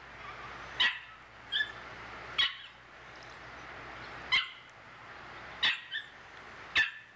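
A small dog yapping: about seven short, sharp barks at uneven intervals, two of them close together near the end.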